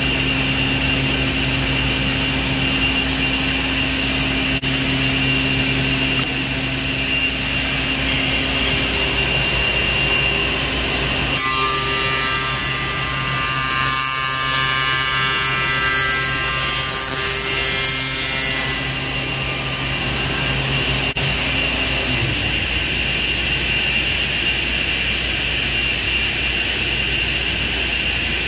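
PADE CNC woodworking machine running with a steady motor hum; about eleven seconds in, its cutter bites into the wooden workpiece for about eight seconds, a high-pitched whine with a rasp of wood being cut, while cutting the tenon. Around twenty-two seconds in, the lower motor hum stops.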